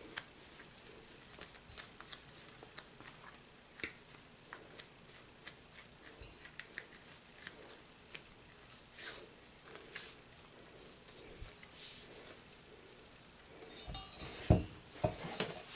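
Faint handling sounds of hands rounding pizza dough: soft rustles and light taps, a few sharper ones partway through, and a dull thump near the end as a dough ball is set into a stainless steel bowl.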